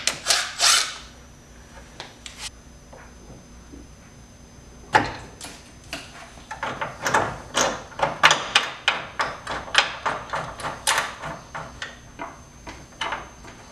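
Clicks and metallic clunks of hand tools working the bolts of the transmission-side engine mount. A few loud knocks come at the start, then a quick irregular run of clicks from about five seconds in until near the end.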